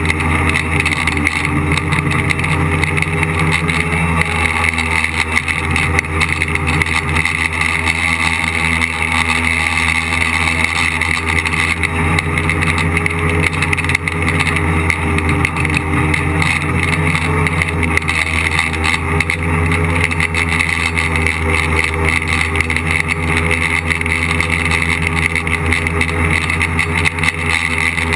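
Tricopter's three electric motors and propellers buzzing steadily as it flies, heard from its onboard camera. The pitch wavers slightly midway with changes in throttle.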